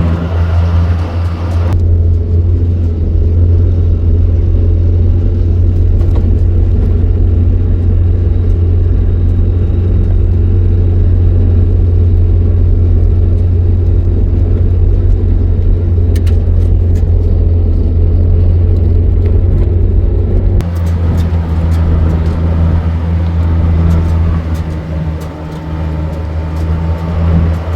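Motor vehicle engine running steadily with a loud low hum, its sound shifting about two seconds in and again about twenty seconds in.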